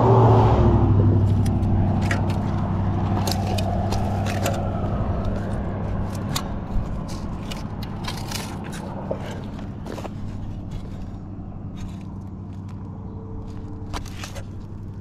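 Motor vehicle going by: engine hum and tyre noise, loudest at the start and slowly fading. Scattered clicks and scrapes of metal being handled run over it.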